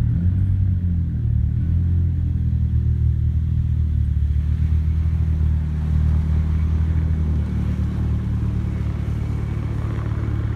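Nissan Silvia S15's turbocharged SR20DET four-cylinder engine idling with a steady low hum, its pattern shifting slightly about seven seconds in.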